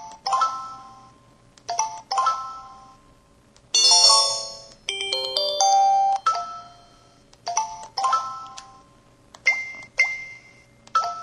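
Samsung SPH-E3700 mobile phone playing its built-in sound effects one after another. Short ringing chimes, often in pairs, come every couple of seconds, with a longer multi-note melodic jingle a little under four seconds in.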